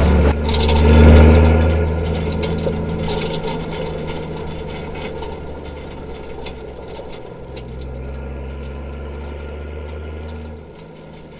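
Straight-piped Nissan TD42 straight-six diesel running while driving, a low steady drone that is loudest about a second in, then eases off and drops away near the end.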